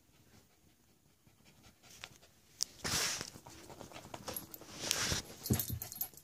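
A dog panting, heard as two loud breathy rushes about two seconds apart with a few small clicks around them, and a light jingle of metal collar tags near the end.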